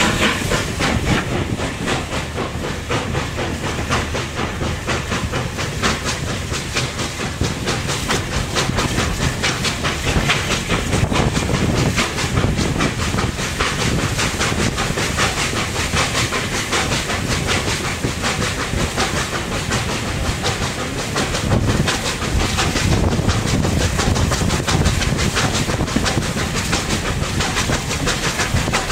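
Steam train running along the line, heard close to the locomotive: steady steam hiss and exhaust beats over the rattle of the wheels clacking on the rail joints.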